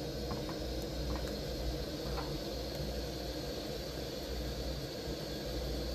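Steady hiss with a low rumble from a dosa cooking on a pan over a gas burner, with a few faint taps of a wooden spatula in the first couple of seconds.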